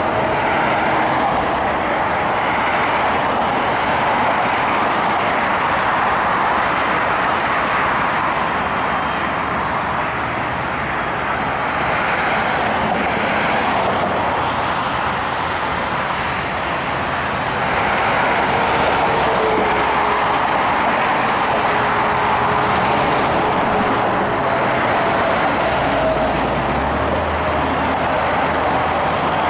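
Steady road traffic noise from cars and trucks passing on a busy multi-lane road, with a deeper rumble from a heavy vehicle near the end.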